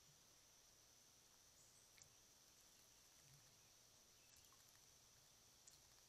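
Near silence, with a faint, steady, high-pitched drone of insects singing and a couple of faint clicks.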